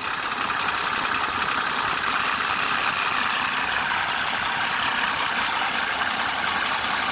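1992 Mercedes-Benz W140 turbodiesel engine idling with a steady rattle that sounds like a timing chain. The rattle comes from play in the bushing of the chain tensioner's shock damper, which has gone bad. It happens only at idle.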